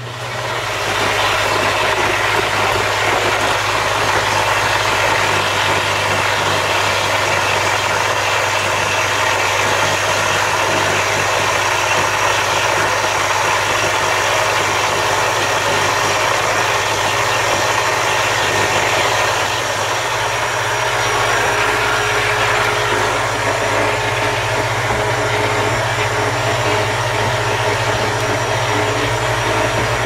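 Electric egg washer running: wash water churning and bubbling around a wire basket of eggs over a steady motor hum.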